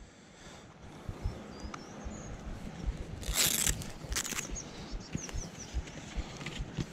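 A roll-up plastic fish measuring mat being unrolled and handled: soft knocks, with two short crackling rustles about three and four seconds in. Faint bird chirps in the background.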